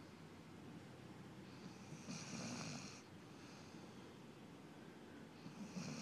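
Sleeping puppy snoring faintly: one snoring breath about two seconds in, and the next beginning near the end.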